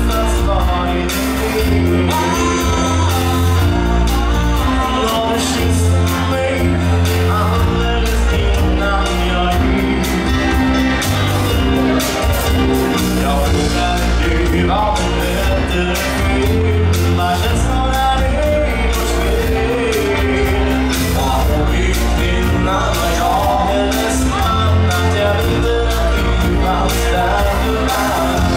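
Live band playing a song in Swedish: a man sings lead over drums with a steady beat, bass guitar, electric guitar and keyboards.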